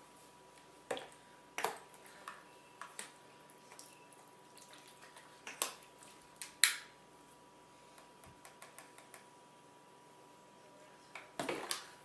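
Scattered faint clicks and taps over quiet room tone, the sharpest about six and a half seconds in, with a short run of small ticks a little later and a brief rustle near the end. A faint steady high hum runs underneath.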